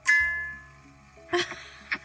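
A bell-like chime struck once, ringing and fading away over about half a second, over a soft steady musical drone. Near the end come a few short scratchy bursts.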